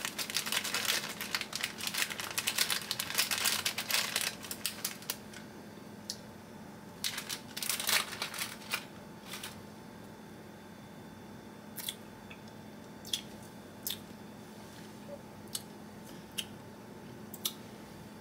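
Clear plastic candy wrapper crinkling and tearing as a chili-coated lollipop is unwrapped. The crinkling is dense for the first five seconds, with a few more bursts around eight seconds in. After that come scattered short clicks and smacks as the lollipop is sucked.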